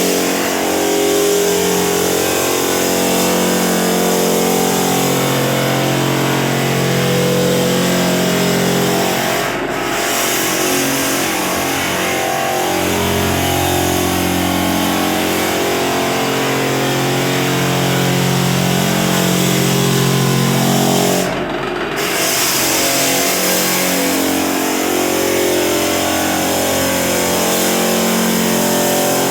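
Floor sander running steadily with its vacuum going, sanding heavy varnish off a wooden floor wetted with a penetrating lubricant. The hiss dips briefly twice, about a third and two thirds of the way through.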